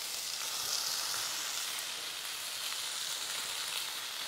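Chicken breasts and chopped vegetables frying in rapeseed oil in a stainless steel pan: a steady sizzle.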